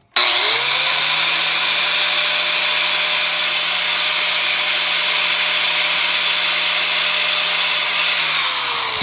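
Electric angle grinder switched on, spinning up quickly and running at steady speed with a loud grinding hiss as it works the thin stainless steel wiper-blade keeper into a lock pick. Its motor begins to slow near the end.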